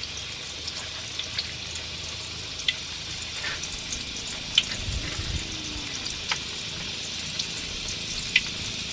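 Egg-dipped eggplant frying in a wok over a wood fire: a steady sizzle with occasional sharp crackles.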